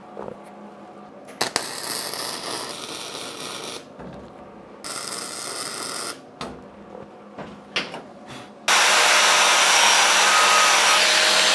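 Flux-core MIG welder crackling on steel in several short stretches that start and stop abruptly, then, about three-quarters of the way in, an angle grinder starts running loud against steel channel, its pitch dropping slightly near the end.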